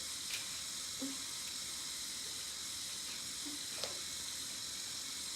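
Battery-driven motor and plastic gear train of a Lego Technic bucket wheel excavator running steadily as it slowly turns the machine's upper body, a hissy whir with a faint steady tone and a few soft clicks.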